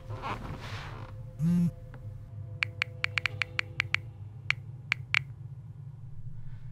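Buttons on a video switcher console being pressed: about a dozen sharp clicks in an uneven run over two and a half seconds. A short electronic buzz, the loudest sound, comes just before them, over a steady low electrical hum.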